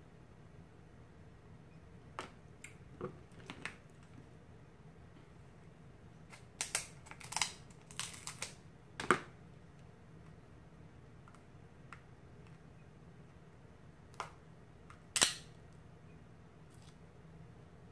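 Crab-leg shells being cracked and snipped open by hand and with kitchen scissors: a scattering of sharp cracks and snips, bunched in the middle, with one loud crack near the end.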